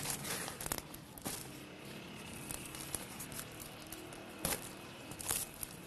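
Dry sheets of flatbread crackling and rustling as they are handled: a few short, sharp crackles, the loudest about four and a half and five and a quarter seconds in.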